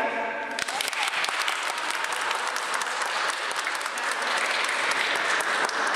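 Audience applauding: a crowd of hand claps that starts about half a second in and keeps on steadily.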